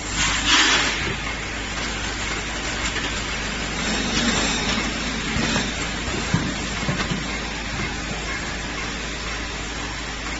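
Automatic fastener weighing and bagging machine running steadily. A short, loud burst of high-pitched noise comes about half a second in, and a few low knocks come around six to seven seconds in.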